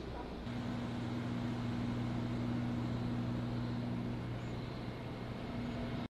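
A vehicle engine running steadily with a low, even hum, over quiet street noise.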